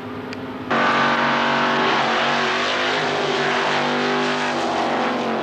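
Drag racing cars at full throttle passing close by side by side, engines running loud. A quieter steady engine sound is cut off suddenly under about a second in, and the loud engines take over.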